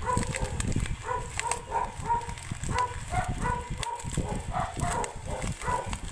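Bubble wrap crinkling and rustling as it is pulled open by hand. Over it, short high calls repeat about twice a second.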